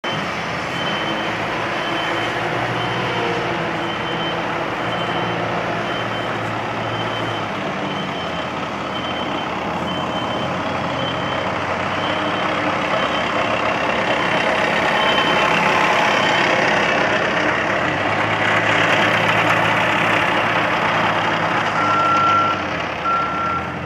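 A concrete saw cutting dry, with no vacuum attached, making a steady loud noise over running engines. A vehicle's reversing alarm beeps about once a second through the first half, and a lower-pitched reversing alarm starts beeping near the end.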